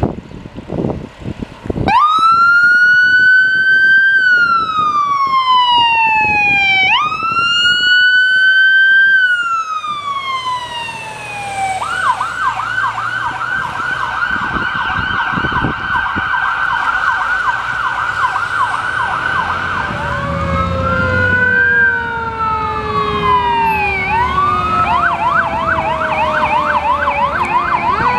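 Fire engine sirens on an emergency response. The siren starts about two seconds in with two slow wail cycles, each rising quickly and falling slowly, then switches to a fast yelp. Later it wails again and goes back to yelping, with a lower tone falling slowly underneath.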